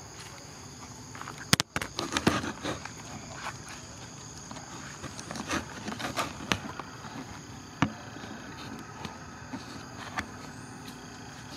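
Irregular footsteps on a dirt forest path over a steady high-pitched drone of insects, with a sharp click about one and a half seconds in.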